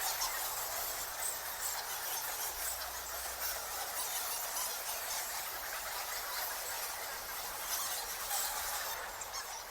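A colony of bats squeaking, many high chirps overlapping into a dense, continuous chatter that begins to fade out at the very end.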